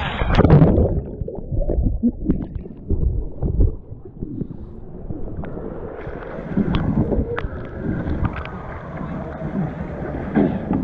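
River water splashing and gurgling close to the microphone around inflatable rafts, with wind rumbling on the microphone; the splashing is loudest in about the first second.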